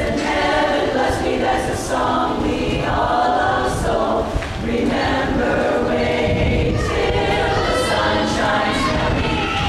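A large women's chorus singing together, many voices at once at a steady, full level.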